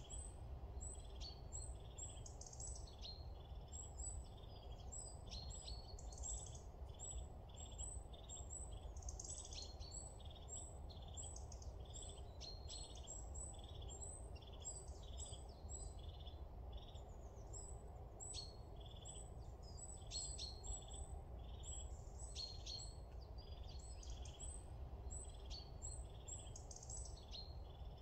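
Small birds chirping and calling over and over in woodland, short high notes following each other in quick succession, over a faint, steady low rumble.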